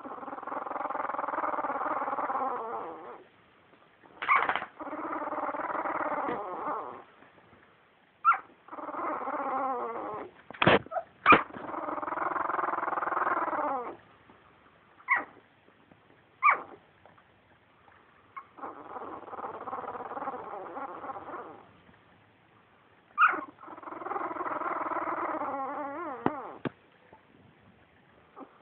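Two-week-old puppies crying: about six long, drawn-out whining cries of two to three seconds each, with short sharp squeaks in between.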